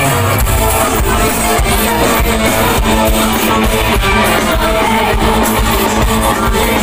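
Loud music with singing and guitar playing over an open-air concert stage's sound system, heard from within the crowd.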